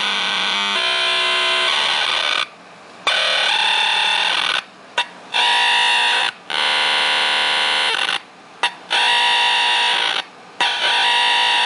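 Tiny Casio mini keyboard played through a circuit-bent Crunchbox filter, its notes crunched into a harsh, buzzy, distorted drone that changes tone as the knobs are turned. The sound breaks off abruptly for a moment several times and comes straight back.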